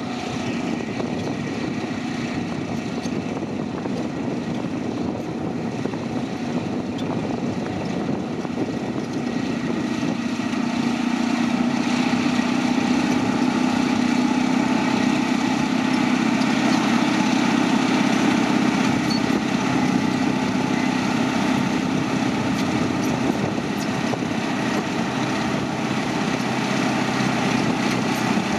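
Caterpillar D9N bulldozer's diesel engine running steadily, growing louder about ten seconds in and holding there.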